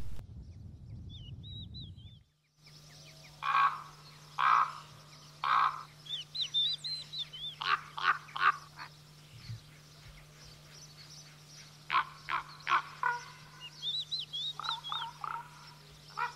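Common raven calling: hoarse croaks, first three about a second apart, then quicker runs of shorter calls. Small birds twitter thinly in the background.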